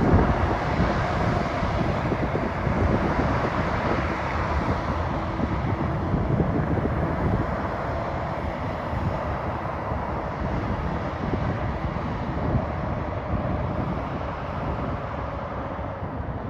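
Diesel engine of a hi-rail semi truck running steadily as it moves a hopper car along the track, growing gradually fainter as it pulls away.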